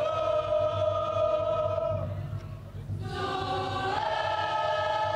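Cook Islands performing group singing as a choir, holding long sustained notes: one chord for about two seconds, a brief break, then a second held chord that steps up slightly in pitch.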